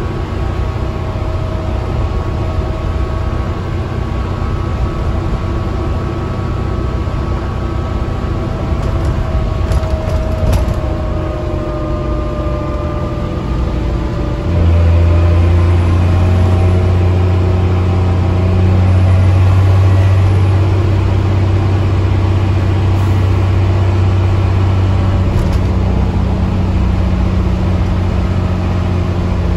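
Dennis Trident double-decker bus heard from the upper deck while under way: a steady engine and drivetrain drone with faint whines and a few light rattles. About halfway through, a deep, louder engine hum sets in and holds.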